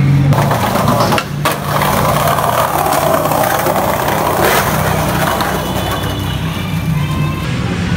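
Skateboard rolling over tiled paving: the wheels rumble and clatter steadily, with knocks from the wooden board, and the noise swells in the middle.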